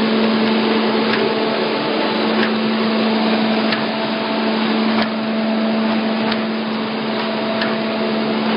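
ZD 430B paper bag making machine with inline flat-handle unit running: a steady mechanical whir over a constant low hum, with a sharp click repeating about every one and a third seconds.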